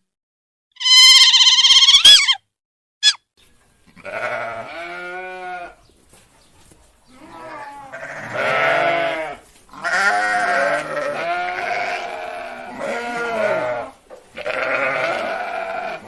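Farm animals bleating: a run of wavering, overlapping bleats, each one to two seconds long, starting about four seconds in, preceded by a single short, high-pitched call about a second in.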